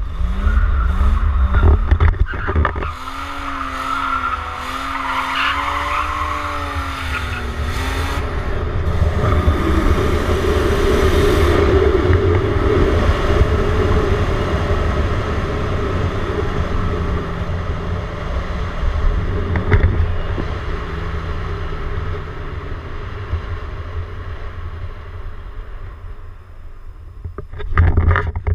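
Toyota Celica Supra with a 7M-GE straight-six being driven hard: the engine note rises and falls with the throttle over the first several seconds, then gives way to a long rushing noise of tyres skidding, with a heavy low rumble throughout.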